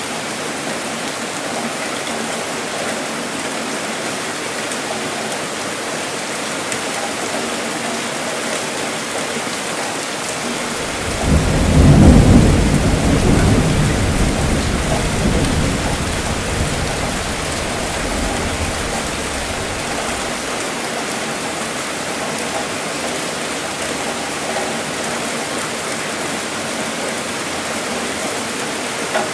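Steady rainfall, with one roll of thunder breaking about eleven seconds in, loudest at first and rumbling away over several seconds.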